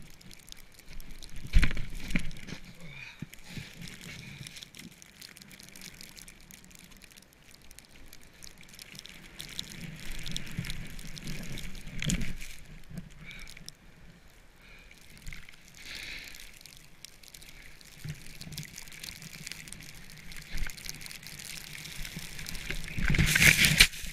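Snowboard scraping and hissing over snow, heard on a body-mounted action camera, broken by knocks and scuffs as the rider goes down. There is a sharp thump about a second and a half in, another burst around the middle, and a loud rush of snow spray near the end.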